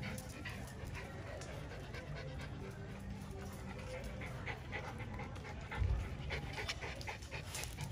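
Miniature Schnauzers panting, with many small clicks and scuffs. One dull low thump about six seconds in.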